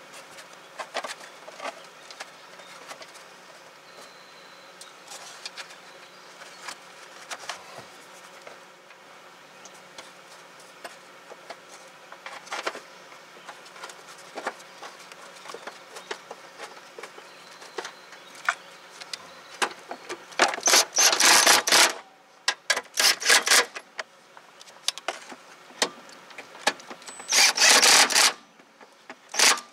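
Cordless electric ratchet running in several short bursts of a second or so, starting about two-thirds of the way through and again near the end. Before them, scattered small metallic clicks and clinks of tools and parts being handled.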